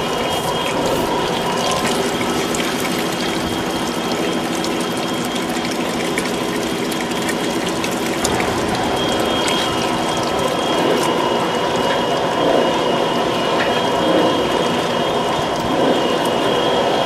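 Vincent screw press with its hopper breaker bar running steadily on tomatoes and oranges, giving a constant mechanical churning noise with a faint high whine and scattered clicks. Pressed juice splashes into a bucket under the press.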